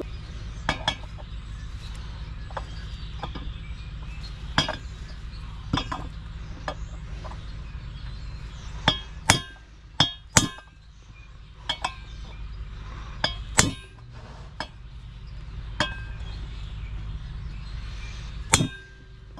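Hammer tapping a metal driver to drive a new sealed ball bearing into the hub of a Suzuki V-Strom 1000 rear wheel, seating it. Irregular sharp metallic clinks, around twenty, a few louder ones ringing briefly.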